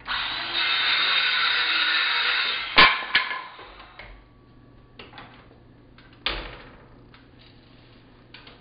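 Circular saw cutting through a pine board for about three seconds, ending in a sharp knock and a second one just after as the cut finishes and the blade winds down. A few separate wooden knocks follow later.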